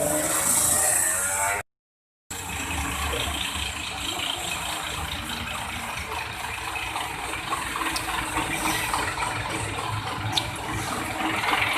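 Cabin noise of an intercity bus on the move: a low engine rumble under steady rattling of the body and fittings. The sound drops out completely for about half a second near the start.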